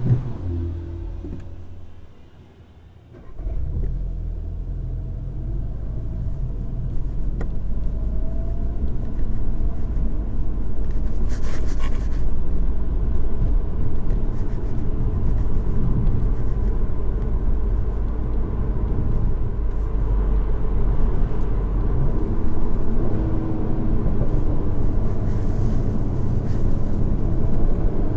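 Seat Leon Cupra 300's turbocharged 2.0-litre four-cylinder and stock exhaust heard from inside the cabin while driving: a steady low drone that drops away briefly about two seconds in, then slowly grows louder.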